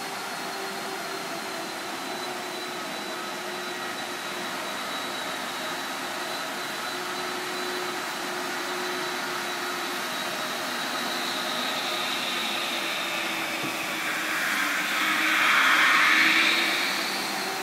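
Steady drone of industrial machinery with faint high, whining tones. A louder hissing rush swells up about fifteen seconds in and dies away just before the end.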